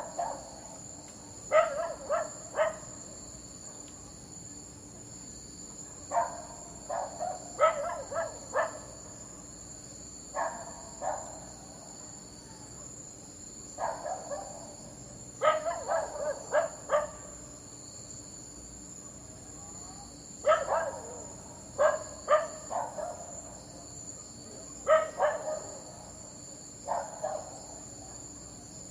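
A dog barking in short volleys of two to four barks, a few seconds apart, over a steady high-pitched drone in the background.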